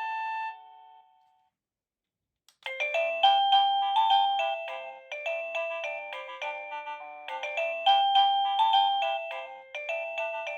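Avantek wireless doorbell chime unit playing its tunes. One melody dies away shortly after the start; after a pause of about two seconds there is a click, and then a new electronic multi-note tune begins, its phrase repeating.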